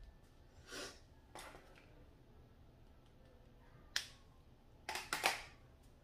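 A few light clicks and rustles of makeup products and tools being handled: a short rustle about a second in, a sharp click about four seconds in, and a quick cluster of clicks near the end.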